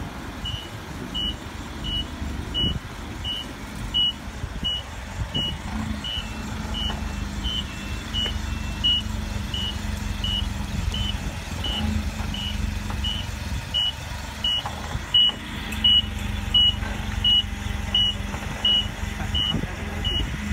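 A forklift's reversing alarm beeping steadily, about three beeps every two seconds, over the low, even hum of its running engine.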